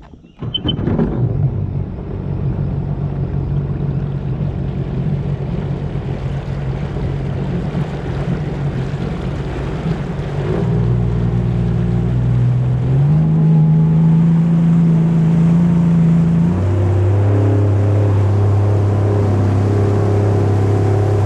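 Jet ski engine running with water rushing past the hull. The sound comes in abruptly right at the start and grows louder about halfway through; the engine note steps up in pitch a little later, then drops to a lower, steady note for the rest.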